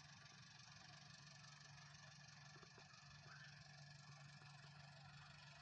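Near silence: a faint steady low hum under a soft hiss, with a few faint ticks.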